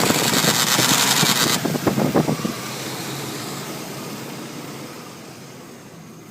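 A 4.3L Vortec V6 engine running with a rapid clicking from its distributor, over a loud hiss in the first second and a half. About two and a half seconds in the clicking stops and the sound fades away.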